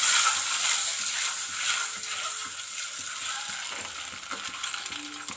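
Boiled eggs sizzling in hot mustard oil with turmeric in a small aluminium pot, with light scrapes and knocks as they are stirred. The sizzle is loudest at first and eases off gradually.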